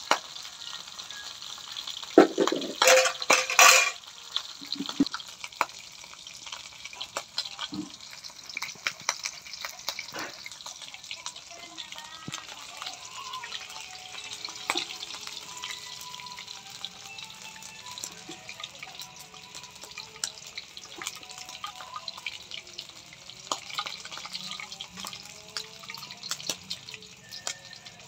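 Chicken feet deep-frying in oil in a wok: a steady sizzle, with chopsticks turning them. A short run of loud cracks comes about two seconds in.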